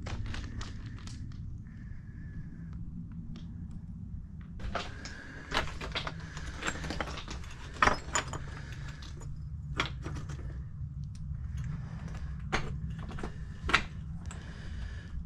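Hiker's footsteps on a rocky trail, with stones clicking and clinking underfoot at an uneven pace, over a steady low rumble.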